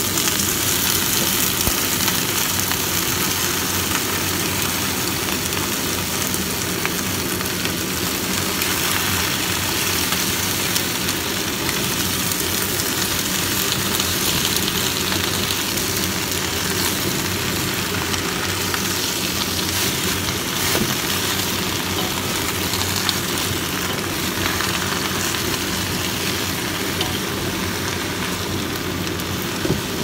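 Sweet potato leaves sizzling in hot oil in a wok as they are stir-fried with a wooden spatula: a steady loud hiss over a constant low hum, with a few light knocks of the spatula.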